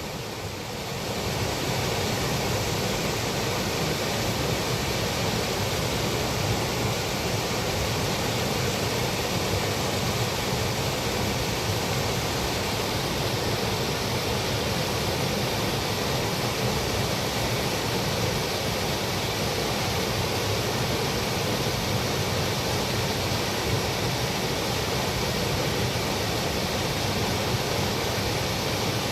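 Mountain stream water rushing steadily over rocks, a constant wash of noise that swells up over the first second or two.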